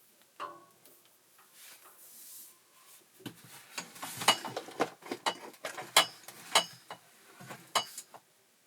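Small metal parts clinking and knocking together as they are handled, a dozen or so sharp clicks, some with a short metallic ring, bunched in the second half.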